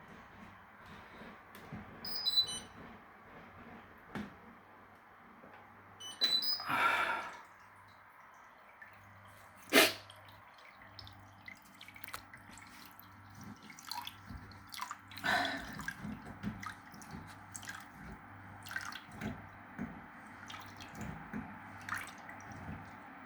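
Washing machine running with water dripping and splashing inside it, over a low hum that cuts in and out in short, regular pulses. Scattered clicks and knocks, with one sharp loud click about ten seconds in.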